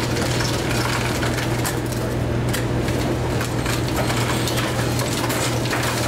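Soda fountain dispensing into a large cup, with scattered clinks and rattles, over a steady low hum.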